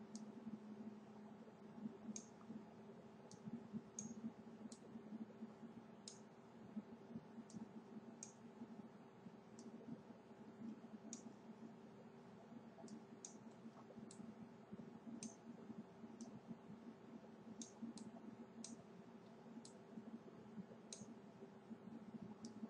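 Faint computer mouse button clicks, irregular, about one a second, over a low steady electrical hum.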